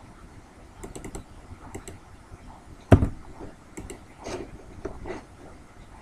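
Scattered computer keyboard keystrokes and clicks, with one louder tap about three seconds in.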